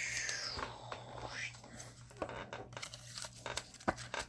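A trading card being slid into a soft plastic penny sleeve and a rigid plastic top loader: a rustling, scraping plastic sound for the first second or so, then a few light clicks and taps of plastic.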